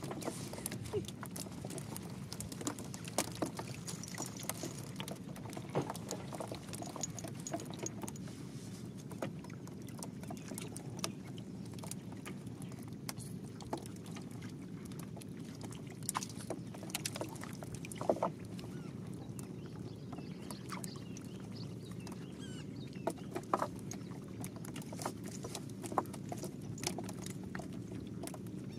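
Scattered light taps and flaps of a freshly netted catch of fish flopping in the bottom of a boat, over a steady low hum.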